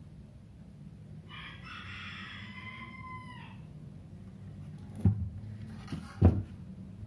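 A rooster crowing once, a long held call that drops in pitch at the end. A few seconds later come two sharp knocks about a second apart, the loudest sounds here, as the plastic drone is handled on the wooden desk.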